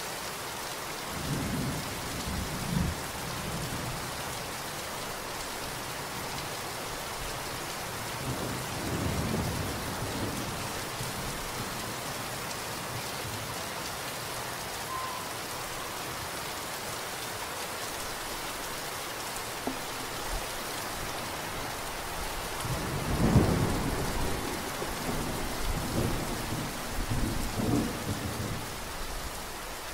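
Steady rain with low rumbles of thunder: short rolls about a second in and around nine seconds, and a longer, louder roll through the last quarter.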